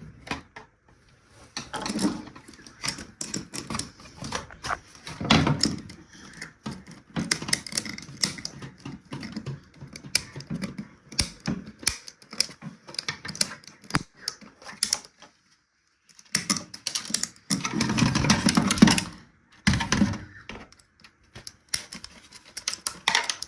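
Irregular clicks, taps and rattles of plastic and metal parts being handled and pried at while a broken radio-cassette-CD player is taken apart, with a short pause about two-thirds of the way through.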